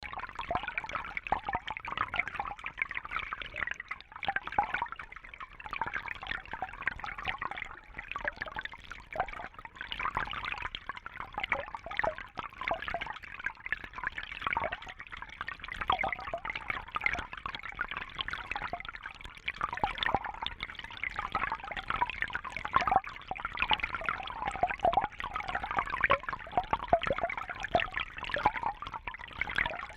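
A shallow babbling brook running over stones: a continuous busy gurgling and trickling of water, full of small splashes.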